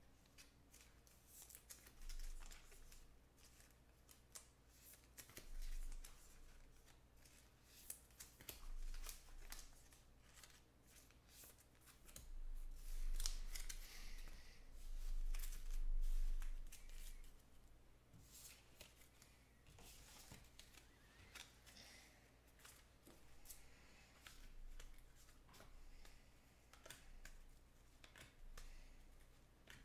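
Faint handling of trading cards: scattered soft clicks and rustles as cards are sorted and stacked, with a few dull bumps on the table.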